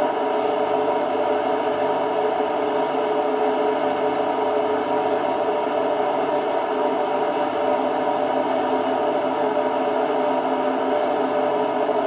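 Indesit IWD71251S washing machine spinning at speed, a loud steady noise from drum bearings that are starting to go. Near the end a high whine begins to drop in pitch as the drum starts to slow.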